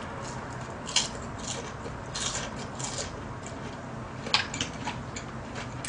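Close-miked eating: chewing a mouthful of food with wet mouth smacks, and a few short clicks of chopsticks against the dishes, one about a second in and another a little past four seconds.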